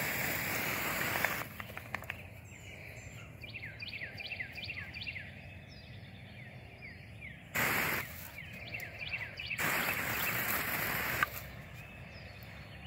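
Garden hose spray hissing in three bursts: one lasting over a second at the start, a short one about halfway through, and one of nearly two seconds later on. In the gaps, quieter short falling chirps repeat several times a second.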